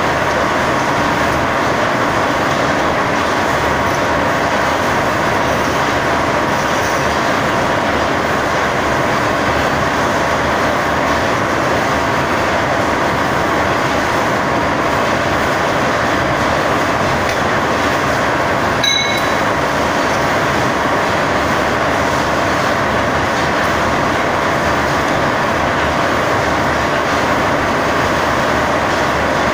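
Wire drawing machinery running steadily and loudly as wire feeds onto a coil, with a constant industrial drone. A single short high tone sounds about two-thirds of the way through.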